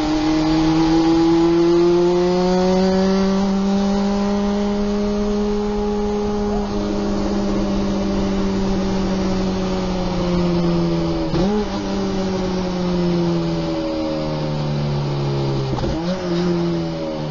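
Lotus race car's engine heard from inside the cockpit, pulling hard in third gear with the pitch rising, then easing off. Under braking it downshifts, with quick dips and jumps in engine pitch about eleven and sixteen seconds in.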